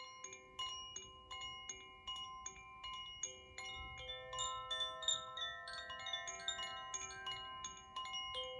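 Tuned metal instrument ringing in a gentle repeating pattern of notes, about two or three a second, each note sustaining and overlapping the next; about halfway through a new set of higher notes comes in.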